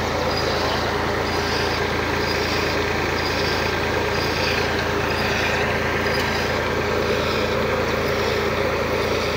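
Tractor's diesel engine running steadily under load, turning a tubewell pump through a flat belt off its rear tyre, mixed with water gushing from the pump's discharge pipe into a tank. A faint high tick repeats about every three-quarters of a second.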